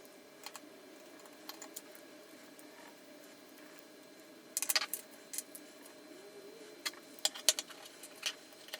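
Small plastic and metal RC kit parts clicking and tapping as they are handled and fitted together by hand. There is a quick cluster of clicks about halfway through, then a few single sharp ticks near the end.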